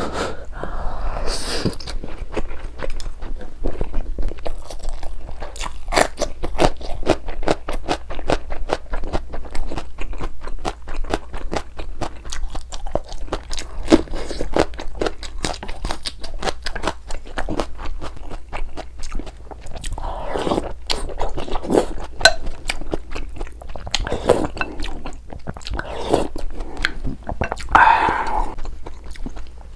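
Close-miked eating: steady chewing and biting of food, a dense run of many quick mouth clicks, with a few short louder breathy patches in between.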